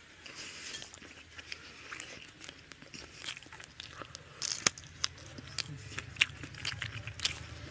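Close-up eating by hand: chewing with wet mouth clicks and smacks over mouthfuls of rice and chicken curry. The clicks are sparse at first and come thicker and sharper from about four seconds in.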